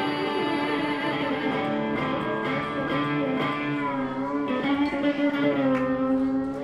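Electric guitar playing sustained, ringing notes in a live performance, with notes bent up and down in pitch from about four seconds in.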